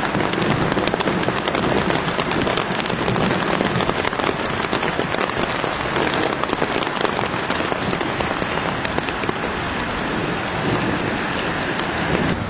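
Rain falling steadily onto wet grass and muddy ground: a dense, continuous patter of many drops.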